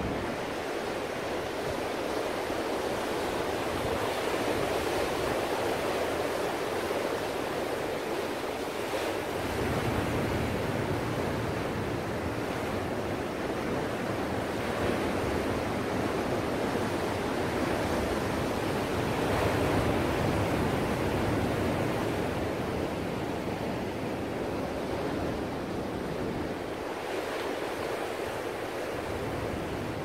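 Ocean surf: waves breaking and washing in, a steady rushing noise that swells louder around twenty seconds in and eases off near the end.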